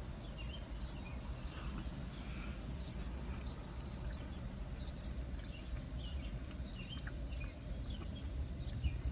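A low steady rumble with scattered short, high clicks and chirps throughout.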